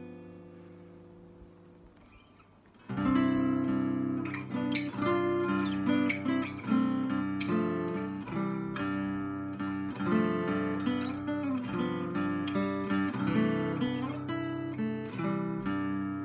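Acoustic tenor guitar tuned an octave down, played solo. A chord rings and fades over the first few seconds. About three seconds in, the playing comes back loudly with a flowing plucked melody over bass notes.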